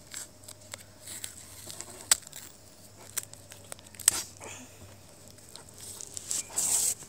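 Handling noise: scattered soft clicks and taps with bits of rustling, and a short burst of rustling near the end.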